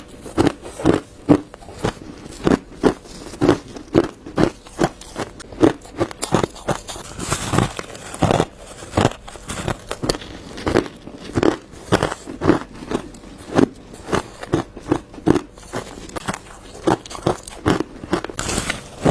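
Ice being bitten and crunched close to the microphone: a steady run of sharp crunches, two or three a second.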